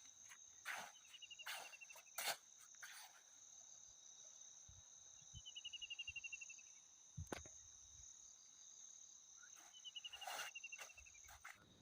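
Night insects, mostly crickets, trilling steadily and faintly in two high continuous tones. Short pulsed chirp trains break in three times, and there are a few soft clicks.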